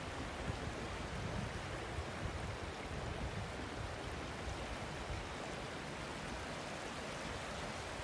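Small waves lapping on a sandy, pebbly shore: a steady wash of water.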